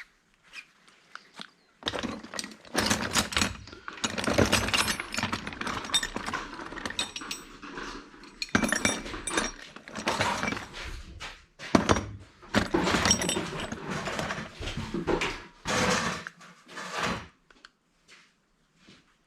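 Metal parts and hand tools clattering, scraping and knocking in irregular bursts as an old electric angle grinder is taken apart by hand. The noise starts about two seconds in, pauses briefly twice, and stops a couple of seconds before the end.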